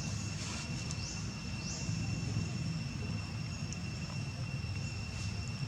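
Outdoor ambience: a steady, high-pitched insect drone over a continuous low rumble, with a few short chirps in the first two seconds.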